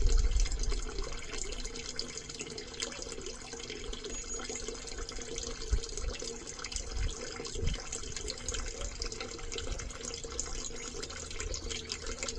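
Wastewater from a toilet flush draining out of a sewer pipe into a bucket: a steady, splashing flow of water, with a couple of faint low knocks partway through.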